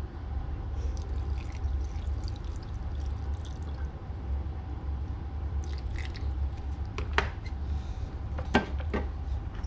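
Vinegar being poured and dripping over raw fish in a bowl, over a steady low hum. Three sharp clicks come in the last few seconds.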